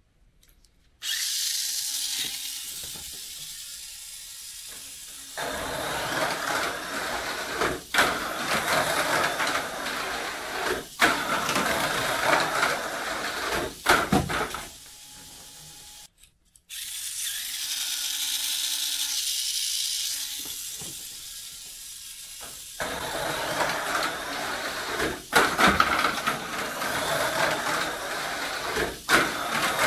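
Tamiya Mini 4WD K4 Gambo running on a plastic slot-less track: a high-pitched electric motor whirr with rattling and sharp clacks as the car's rollers and chassis hit the track walls and lane changes. It starts about a second in, stops abruptly about halfway, and starts again a moment later.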